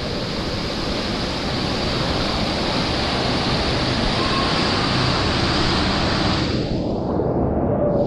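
Steady rushing, churning water from a hot whirlpool's jets, close up. The sound turns muffled for a moment near the end.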